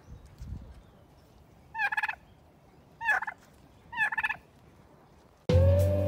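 A turkey tom gobbling: three short, rattling gobbles about a second apart. Near the end, guitar music comes in with a sustained chord.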